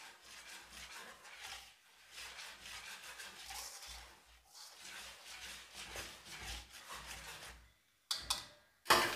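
Bread flour, instant yeast and milk powder being mixed dry in a bowl: a soft, rhythmic rubbing and swishing, with a few sharper knocks near the end.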